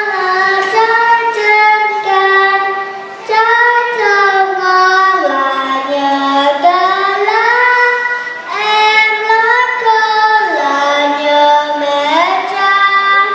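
Children singing a song, loud and close: a slow melody of long held notes that step up and down, with brief breaks between phrases.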